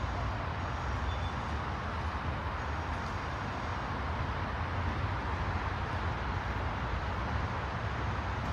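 Steady outdoor city background: an even, low hum of distant traffic with no distinct events.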